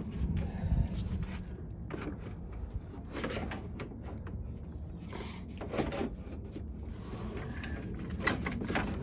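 Scattered light knocks, clunks and scrapes of a replacement radiator and fan assembly being lowered and worked into a car's engine bay, over a steady low background rumble.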